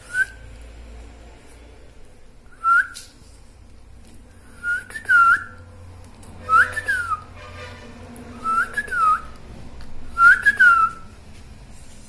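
Repeated short whistling: about six brief phrases a second or two apart, most of them two quick up-and-down notes.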